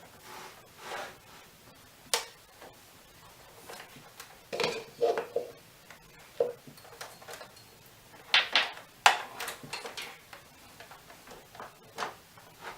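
Laptop being handled on a work surface: irregular plastic clicks, knocks and short scrapes as the machine is moved and its power cable plugged in.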